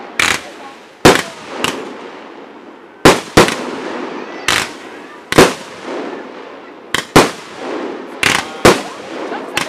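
Aerial fireworks going off: about a dozen sharp bangs at irregular intervals, some in quick pairs, from shells launching and bursting.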